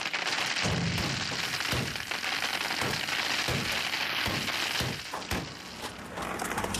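Hailstorm: large hailstones pelting down in a dense, continuous clatter of hard ice impacts, with many heavier thuds among them. It thins out about five seconds in.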